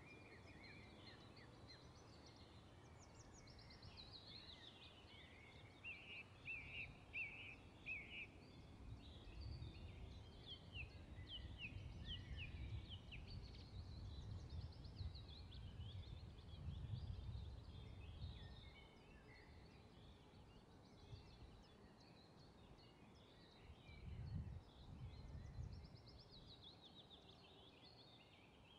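Faint songbirds singing, several voices overlapping in high chirps and trills. A soft low rumble comes and goes through the middle.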